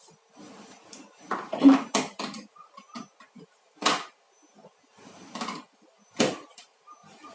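Clatter and sharp knocks of hard objects being handled, with several distinct knocks about two, four and six seconds in; the drill's motor is not running.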